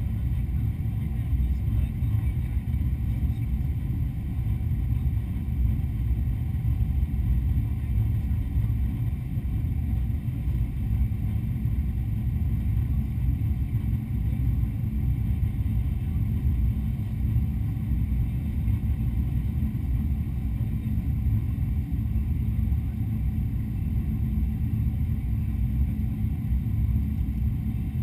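Steady low rumble inside the cabin of a Boeing 777-200 airliner in flight on its descent: engine and airflow noise, even and unchanging.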